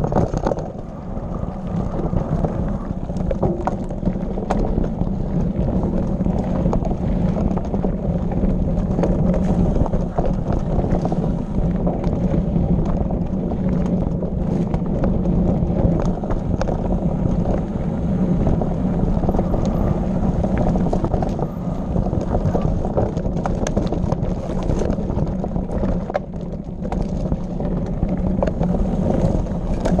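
Mountain bike ridden over a rocky, gravelly trail: a steady low rumble of wind on the microphone and tyres on stones, with frequent small clicks and rattles from the bike.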